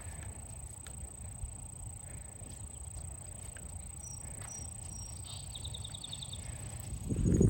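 Quiet outdoor ambience with a low rumble: a few short high chirps and a quick trill from a small bird or insect around the middle, with faint ticks. A loud rustling starts near the end.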